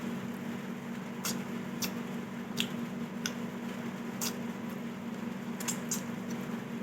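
Close-up eating sounds of a person eating soup: short, sharp mouth clicks and smacks, about seven of them spaced roughly a second apart, over a steady low hum.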